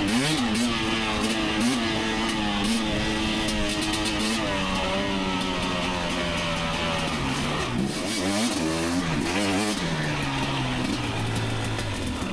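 Two-stroke dirt bike engine under way off-road, its revs rising and falling repeatedly as the throttle opens and closes, with a steadier stretch in the middle.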